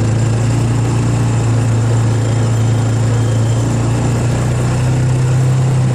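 Engine of the vehicle towing a rider on a rope, running steadily under load, heard from aboard the vehicle: a low, even drone that rises slightly in pitch near the end.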